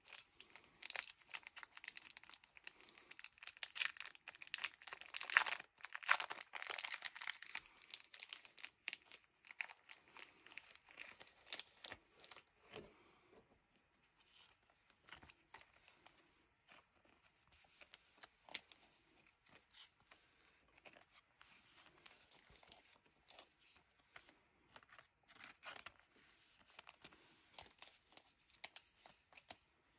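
Clear plastic card sleeves crinkling and rustling in the hands as a stack is handled and separated. The crinkling is dense and loudest in the first ten seconds, then thins to scattered rustles and soft clicks.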